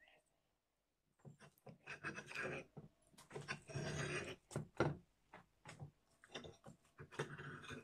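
Knife and fork cutting through a crisp gram-flour roti on a plate: a run of short rasping scrapes and crunches with cutlery clicking against the plate, starting about a second in.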